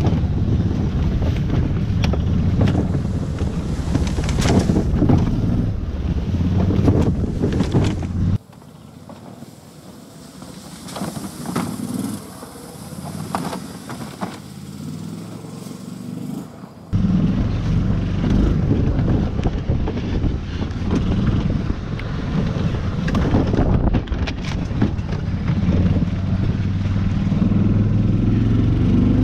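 Golf cart driving over rough, leaf-covered ground: a loud, steady rumble of the running cart with scattered knocks and rattles as it bumps along. About eight seconds in the sound drops suddenly to a much quieter, more distant hum for several seconds, then the loud onboard driving noise returns.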